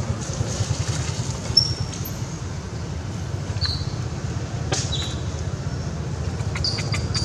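Outdoor ambience: a steady low rumble, with a few short, high bird chirps about a second and a half, three and a half, and five seconds in.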